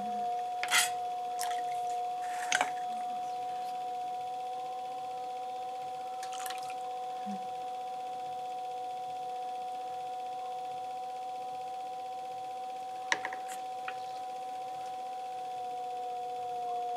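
Electric potter's wheel motor whining at a steady pitch as the wheel spins, with a few scattered light clicks and knocks.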